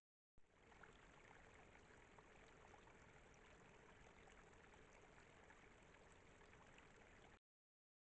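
Faint steady rushing hiss with fine crackles, picked up by a trail camera's microphone in the open at night. It cuts in just after the start and cuts off abruptly near the end, at the edges of the camera's recording.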